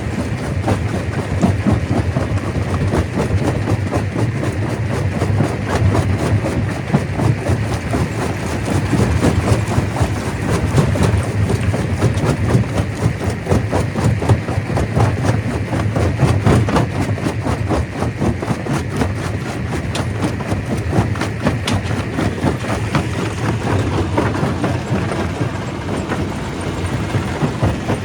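Stone crusher running, a steady heavy rumble with a dense, irregular clatter of rock being broken and tumbling through the machine.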